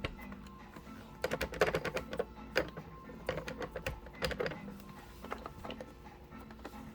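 Background music with steady tones, overlaid by a run of sharp clicks and clatters starting about a second in and lasting a few seconds, with a few more later.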